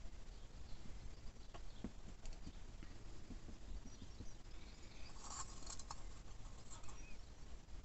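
Faint scraping and small clicks of a stirring stick working thick aluminium casting compound out of a plastic mixing cup into a silicone mould, with a busier patch of scraping about five seconds in.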